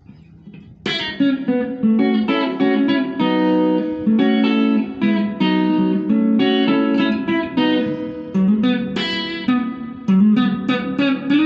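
Electric guitar played through a Mooer GE100 multi-effects processor over a cable: a run of picked notes and chords that starts about a second in.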